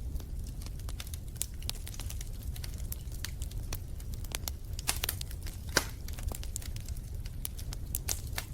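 Wood fire crackling in a fireplace: irregular pops and snaps over a low steady rumble, with a louder snap just before the six-second mark.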